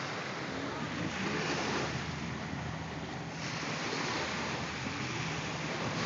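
Small sea waves breaking and washing up a sandy beach: a steady hiss of surf that eases a little about halfway through.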